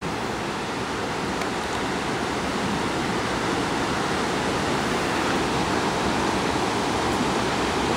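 A fast mountain river running steadily, an even rushing noise that slowly grows a little louder.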